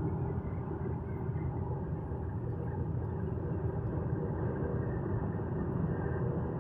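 Steady road noise inside a moving car's cabin at freeway speed: an even rumble of tyres and engine with no sudden events.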